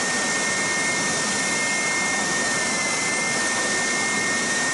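Triton TSPST450 oscillating spindle sander's 450 W motor running steadily, the spindle rotating and oscillating, with a constant high whine over an even rushing noise.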